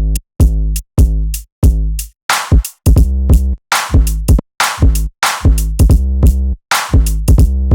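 Electronic drum-machine beat playing: 808 kick and bass notes that ring out low with distorted overtones, mixed with sharp noisy snare or clap hits in a syncopated future-bass groove.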